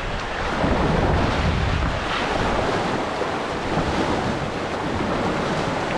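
Rushing whitewater of a river rapid around a paddled raft, a steady dense noise of moving water. Wind buffets the microphone, heaviest in the first second.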